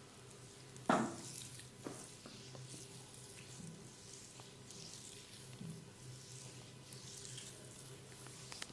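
Hands rubbing and kneading bare skin during a back massage, a soft friction rustle over a steady low hum. A single sharp loud snap about a second in, then a smaller one a second later.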